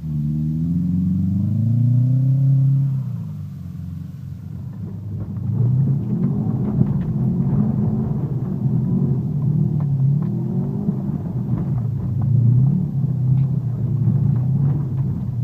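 A car engine revving up and down as the car slides through snow. From about five seconds in it is heard from inside the cabin, with clumps of snow and ice knocking against the body.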